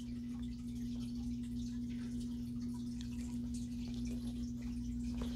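A steady low hum, one unchanging tone, with faint soft rustles as a purse is handled.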